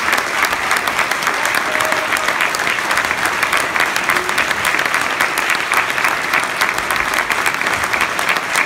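Concert audience applauding steadily at the end of the show, many hands clapping at once without a break.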